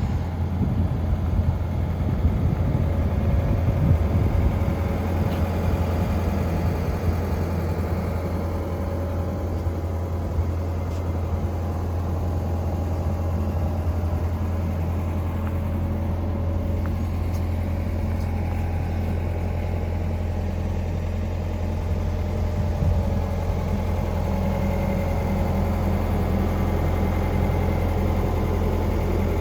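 Komatsu PC78US-8 compact hydraulic excavator's diesel engine idling steadily, a low even hum.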